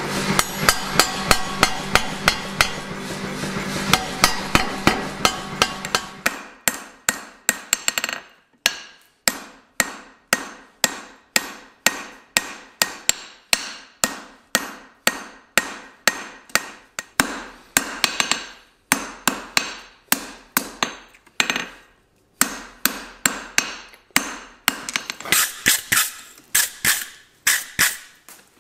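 A mechanical power hammer pounds hot steel in a fast run of blows over a steady motor hum for about the first six seconds. Then a hand hammer strikes hot steel on the anvil, about two to three blows a second, with a couple of brief pauses; the blows ring brighter near the end.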